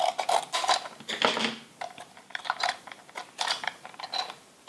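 Hasbro Little Big Bites toy blind box being picked up and handled: irregular clicks, taps and rustles of the box and its packaging.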